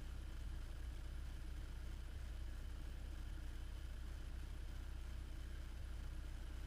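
A steady low rumble under a faint even hiss.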